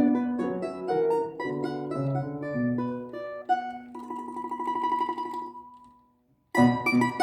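A plucked string instrument playing a classical piece. About four seconds in, a note is sustained with rapid tremolo and fades out. After a brief pause a lively passage starts loudly near the end.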